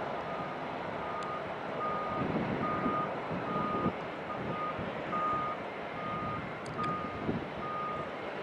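Twin turbofans of a Cessna CitationJet running at low taxi power, a steady rushing hiss, over which a reversing alarm beeps evenly about one and a half times a second.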